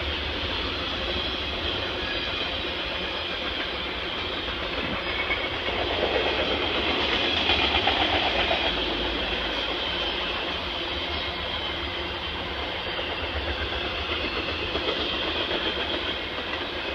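Double-stack container freight train rolling past, its steel wheels rumbling and clicking along the rails in a steady wash of noise that swells a little louder about halfway through.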